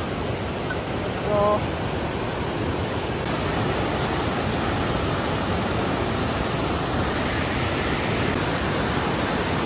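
Whitewater rapids of a fast, boulder-strewn mountain river, rushing steadily close by.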